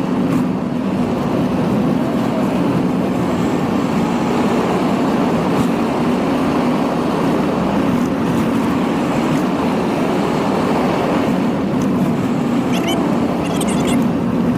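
A machine running steadily with a constant low hum, with a few brief high-pitched squeaks near the end.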